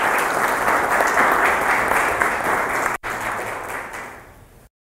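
Audience applauding, the clapping dying away near the end and then cutting off abruptly.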